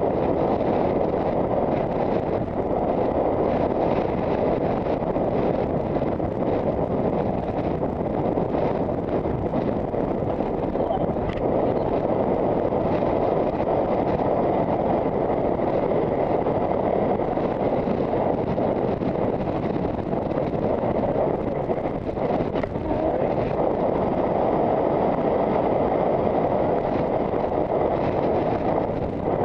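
Steady wind noise buffeting a helmet-mounted camera's microphone as the horse gallops at about 17 mph.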